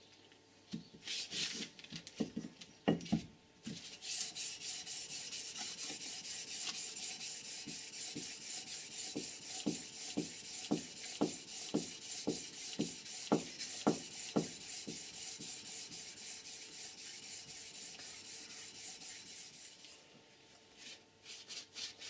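Cylinder head of an air compressor being hand-sanded flat on fine 1200-grit sandpaper, a steady back-and-forth rubbing at about four strokes a second, after a few knocks from handling the head. This is the head face being skimmed smooth for a new head gasket. The rubbing fades out shortly before the end.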